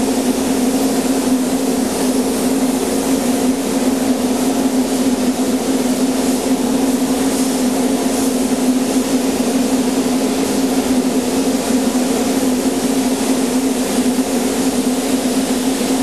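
Steady hum and rushing air of a paint booth's ventilation, mixed with the hiss of a gravity-feed spray gun spraying base coat.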